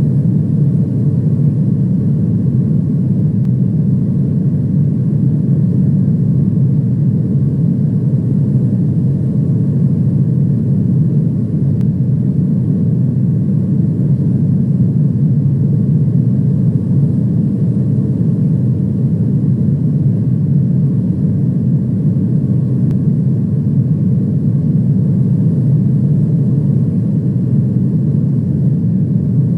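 Airliner in flight: a steady low rumble of engine and airflow noise that holds the same level throughout.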